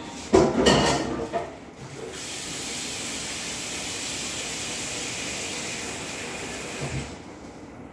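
A loud clatter in the first couple of seconds, then a kitchen tap running steadily into a stainless-steel sink for about five seconds before it is shut off near the end.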